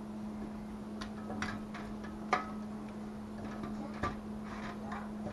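A few sharp metal clicks and knocks as a metal hook and the canning rack clink against the inside of an aluminium pressure canner. The loudest knock comes a little over two seconds in, over a steady low hum.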